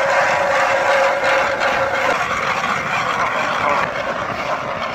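Hand-cranked ice auger's blades cutting into lake ice, a steady grinding scrape. The ice is thin.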